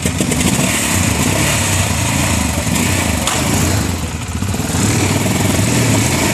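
ATV engine running hard under load. It eases off briefly about four seconds in, then comes back louder.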